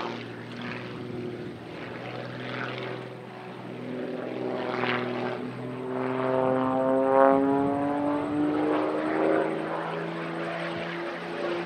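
Pitts S-1-11B aerobatic biplane's piston engine and propeller during an aerobatic display. The engine note climbs in pitch and grows louder as the plane comes around, and is loudest about seven seconds in.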